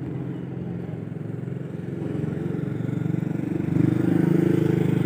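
An engine running steadily with an even, pulsing hum, getting louder a little past halfway through.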